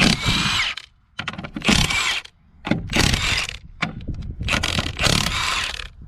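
Impact wrench hammering in four bursts of about a second each, loosening a wheel's lug nuts.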